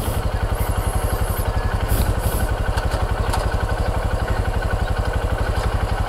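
An engine running steadily with an even low throb, about ten pulses a second.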